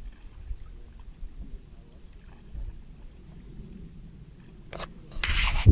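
Low rumble, then a brief rubbing scrape near the end.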